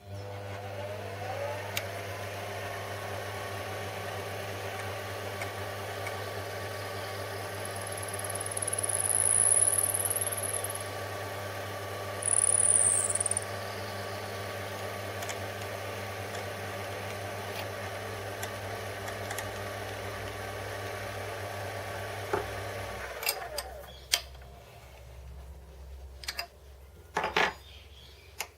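Electric saw motor switched on and spinning up, then running steadily with a hum. It makes two cuts, each a loud high-pitched screech lasting a second or two. It is switched off about three-quarters of the way through and runs down, followed by a few sharp knocks and clicks.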